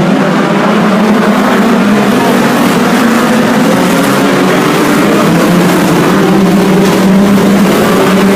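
A pack of BriSCA Formula 2 stock cars running round the oval together, many engines sounding at once as one loud, steady drone of overlapping engine notes. Some notes rise gently in the second half as the cars pick up speed.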